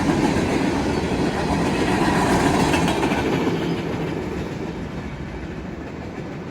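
A BNSF freight train's cars rolling past on the track, a steady rumble of wheels on rail that fades gradually as the train moves away.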